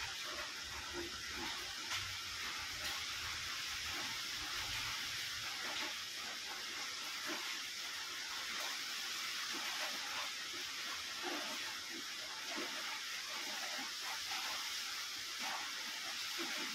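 A steady hiss with no clear source, with a low hum underneath that fades out about five seconds in.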